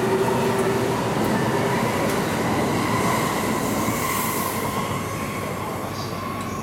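Keihin-Tohoku Line E233-1000 series electric commuter train pulling out of the station. Its traction motors give a steady whine that rises slightly in pitch as it gathers speed, over the rumble of wheels on rail. The sound fades after about five seconds as the last car goes by.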